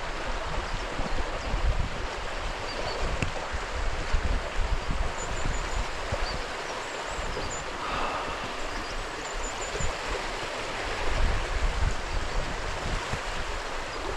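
Fast-flowing moorland stream rushing down over boulders, a steady hiss of water, with uneven low rumbles of wind on the microphone.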